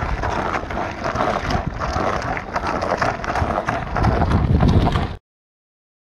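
Wind rumbling on the microphone, with scattered knocks and rolling noise, as a Mongoose Tread BMX bike is ridden along a concrete sidewalk. The sound cuts off suddenly about five seconds in.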